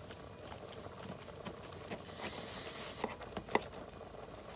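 A metal spatula clicking and scraping against a metal plate while cutting a vegetable omelette. There are a few light taps, the clearest about three and a half seconds in, and a short soft hiss a little after two seconds.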